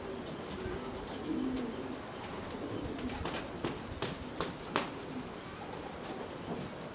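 Racing pigeons cooing in the loft, a low, continuous cooing. A few sharp clicks come about halfway through, and faint high chirps are heard about a second in.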